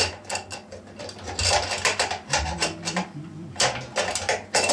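Metal fittings clicking and clinking against the stainless steel top of a Cornelius-style keg as they are worked by hand: a run of irregular sharp clacks.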